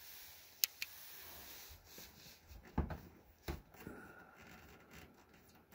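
Faint handling noises: two sharp clicks close together, then a few dull knocks and light rubbing.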